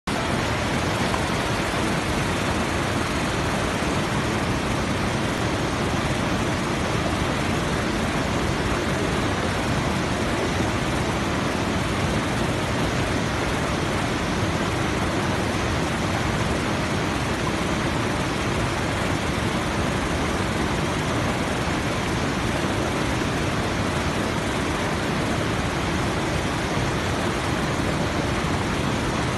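Bopath Ella waterfall and the rapids below it: a steady, unbroken rush of falling and churning water.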